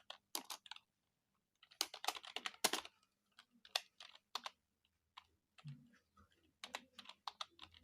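Computer keyboard being typed on: quick runs of key clicks broken by short pauses between words.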